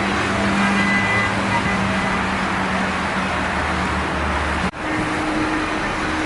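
Road traffic noise: vehicles running past on a busy road with a steady low hum. It breaks off abruptly for an instant about three-quarters through, then carries on with a slightly higher hum.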